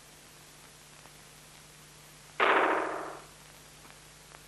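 A single sudden, ringing metallic clang about two and a half seconds in, dying away within about a second, over a faint steady hum.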